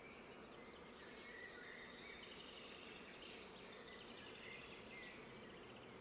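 Faint outdoor nature ambience: scattered bird chirps and short whistled glides, with a rapid trill about halfway through, over a steady low hiss.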